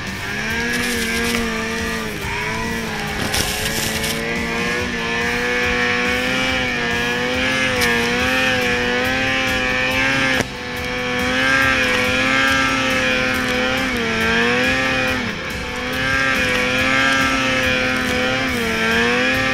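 Snowmobile engine running hard at high revs while riding, its pitch wavering and dipping briefly several times as the throttle is eased and reopened. There is a sudden break in the sound about halfway through.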